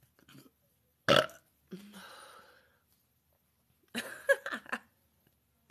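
A woman burping: a short, sharp, loud burp about a second in, followed straight away by a longer, noisier one. A few short sharp sounds come in a quick cluster near the end.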